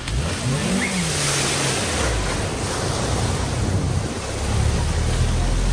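Mini convertible driving through deep floodwater at a ford: water rushing and splashing against the car's body and wheels. Its engine is heard under the water noise, rising in pitch and falling back about a second in, then running steadily under load.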